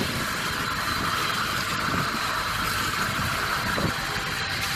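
Steady drone of a motorized bangka (outrigger boat) under way on open water, its engine running evenly under a constant rush of wind and water.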